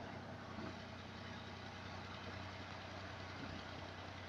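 Fiat 480 tractor's diesel engine running steadily with a low hum while hauling a trolley loaded with wood.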